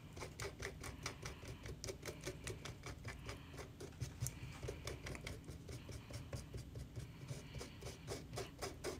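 Silicone spatula scraping and pressing thick glaze through a small metal mesh sieve in a fast run of soft scrapes, several a second. The sieving breaks up clumps in the glaze.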